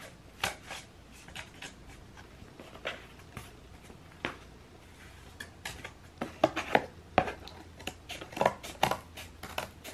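Scissors cutting through stiff cardboard, a run of irregular snips and crunches that come thicker and louder in the second half.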